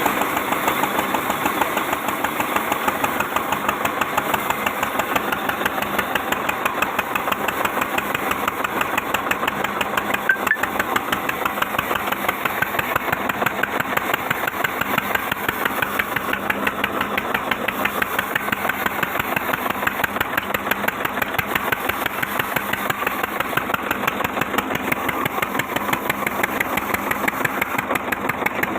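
Engine running steadily with a fast, even chugging.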